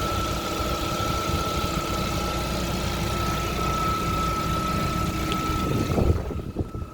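Lada Vesta's 1.6-litre engine, freshly overhauled and running with its catalytic converter removed, idling steadily with a constant high whine over it. The running sound falls away near the end.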